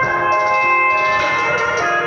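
Music played through a 10-inch Feilo loudspeaker on a sound test, loud and steady, with held notes changing about every half second.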